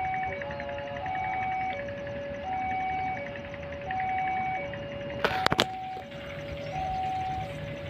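Electronic two-tone warning signal, alternating steadily between a low and a slightly higher note, each held a little under a second. A few sharp clicks cut in about two-thirds of the way through.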